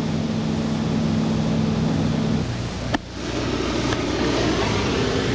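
A steady machine hum stops about two and a half seconds in. After a sudden cut, a lit hand-held flare hisses as it burns.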